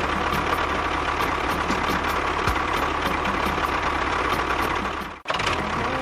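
Tractor engine idling steadily with a knocking chug. It drops out briefly about five seconds in, then comes back.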